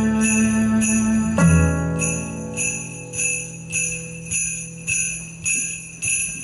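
Sleigh bells shaken in a steady beat, a little under two shakes a second, over a held instrumental chord that changes about a second and a half in and then fades.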